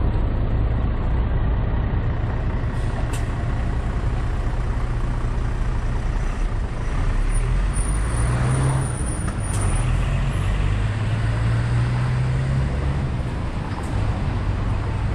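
Street traffic dominated by a large road vehicle's engine running steadily, with a brief high squeal about eight seconds in.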